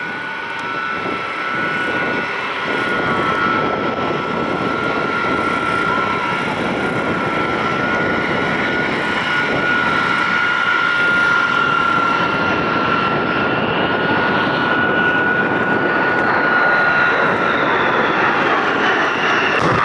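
Boeing B-52H Stratofortress's eight TF33 turbofan engines on a flyby: steady jet engine noise with a high whine, growing louder, the whine and upper tones falling slightly in pitch over the last few seconds as the bomber passes.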